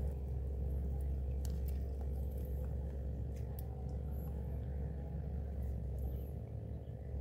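A steady low mechanical hum with several constant tones layered in it, and a few faint, sharp ticks scattered through.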